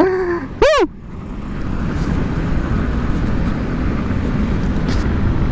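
Wind rush and road noise on the microphone while riding a Yamaha NMAX scooter, building up about a second in as it gathers speed, then holding steady.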